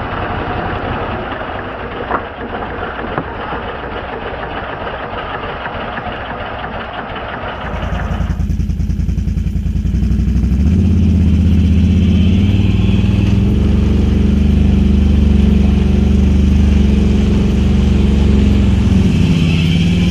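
Can-Am Outlander XMR 1000 ATV's Rotax 1000 V-twin running through dual slip-on exhausts. About eight seconds in the sound changes to a louder, deeper exhaust note that holds fairly steady.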